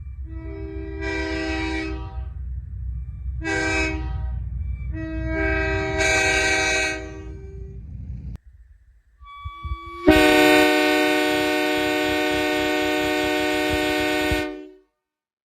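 Multi-chime locomotive air horns blowing: three chord blasts over a steady low rumble, then one long, loud chord blast of about four and a half seconds that cuts off near the end.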